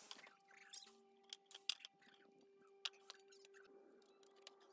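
Quiet handling noises at a workbench: scattered small clicks and knocks, with one sharp click a little under two seconds in and another about three seconds in, over a faint steady hum.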